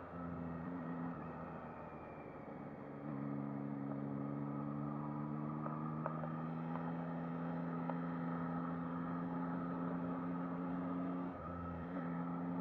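Yamaha MT-09 SP's inline-three engine running under way on a test ride, heard from the rider's seat. Its note holds steady with a few steps in pitch, and there is a short dip in level about eleven seconds in.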